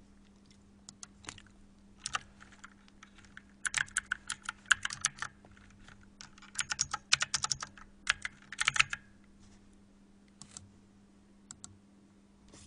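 Typing on a computer keyboard: several quick runs of keystrokes with short pauses between them, busiest in the middle, then a few single taps near the end.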